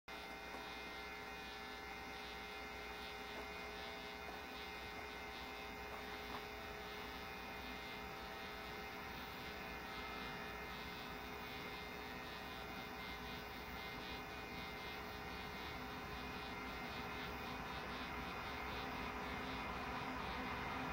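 Diesel freight locomotives approaching at a distance: a steady engine drone with a few held tones, growing slowly louder.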